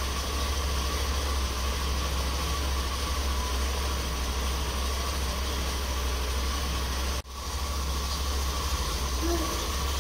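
Motorcycle engine idling steadily, with a brief break about seven seconds in.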